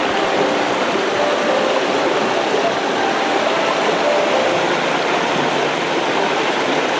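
Steady rushing of a small mountain stream cascading over rock steps in a low waterfall, close by.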